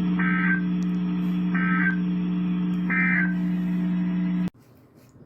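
Three short bursts of EAS/SAME digital data tones, the end-of-message code of a NOAA Weather Radio alert, about 1.4 seconds apart. They play over a steady low hum that cuts off abruptly about four and a half seconds in as the transmission drops.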